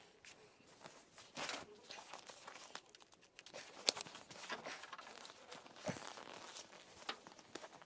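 Old seat cover on a Rover P6 seat being pulled and peeled away from the foam it is glued to: faint rustling and short tearing rasps as it comes loose, with a sharp click about four seconds in.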